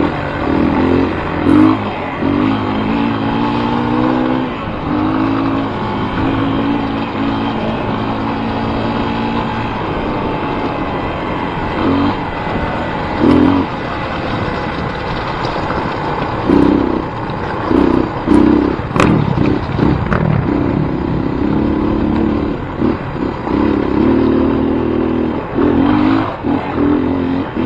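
A vehicle engine revving, in repeated short stretches whose pitch rises and falls, with a few sharp clicks.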